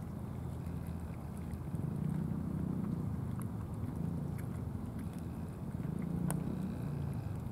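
Cats chewing and licking wet food from plastic trays, heard as faint scattered clicks with one sharper click about six seconds in, over a steady low rumble.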